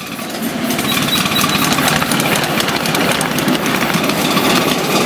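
A 5-inch gauge miniature steam locomotive running past with loaded riding cars: a fast, steady clatter of exhaust beats and wheels on the rails, growing louder over the first second.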